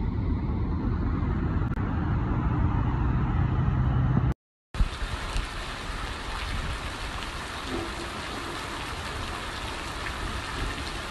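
Wind rumbling steadily on the phone's microphone, with a low steady hum under it. A brief dropout at a cut a little past four seconds, then a steady even hiss of rain falling on the open desert ground.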